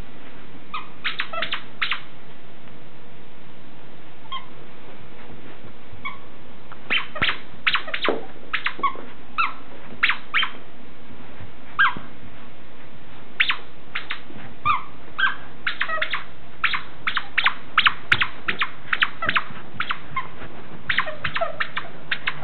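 A Jack Russell terrier puppy squeaking a squeak toy over and over, short sharp squeaks in irregular runs. They come sparsely at first and thick and fast from about seven seconds in.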